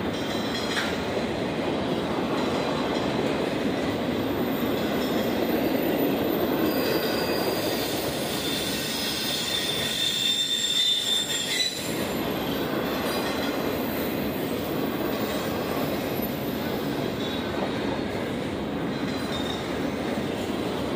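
Double-stack intermodal freight train rolling through a grade crossing: a steady rumble and clatter of wheels on the rails, with a high wheel squeal a little before the middle.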